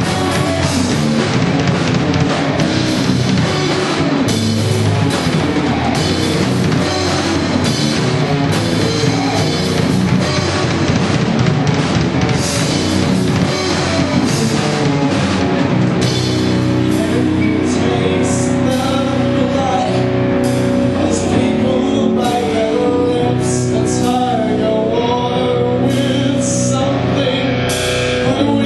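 Live rock band playing loudly: distorted electric guitar, bass guitar and drum kit, with a singer.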